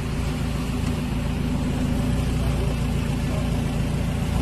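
Mahindra Thar's engine running steadily as the SUV drives through thick mud, its note getting gradually a little louder.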